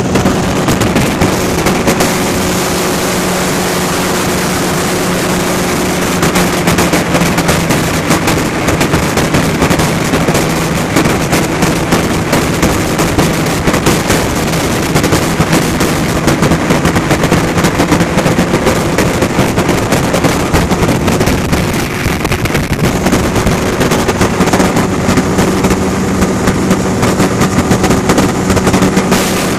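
Ultralight aircraft engine running steadily at cruise power, with a constant droning note. Heavy wind buffeting on the microphone crackles over it. The engine note shifts slightly about a third of the way in and again near the three-quarter mark, with a brief dip in loudness at the second change.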